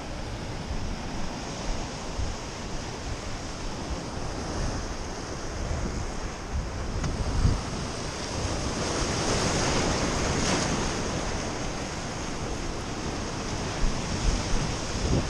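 Rough sea surf breaking and washing over rocks, swelling louder around the middle, with wind buffeting the microphone in low thumps.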